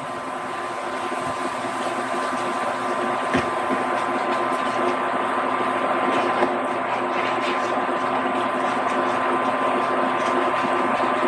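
Portable induction cooktop running with a steady hum and whine, while a wooden spatula stirs cream through a roux in a skillet on it, with a few light taps against the pan.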